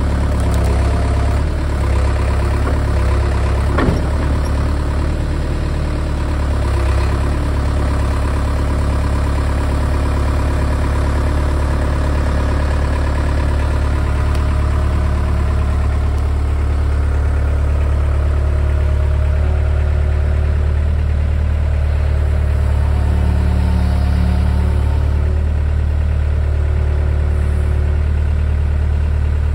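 Caterpillar 307 mini excavator's diesel engine running steadily with a low drone while the boom lifts and holds a pulled tree stump. A sharp knock sounds about four seconds in.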